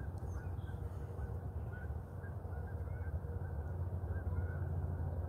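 Outdoor background with a steady low noise and faint short bird calls from far off, repeated every second or so.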